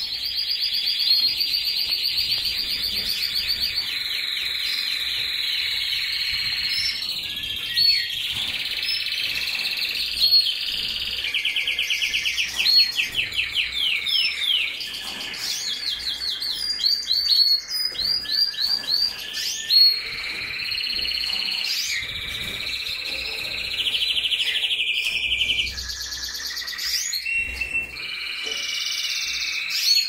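Domestic canary singing a long, unbroken song of rapid trills and rolls, switching to a new trill every second or two.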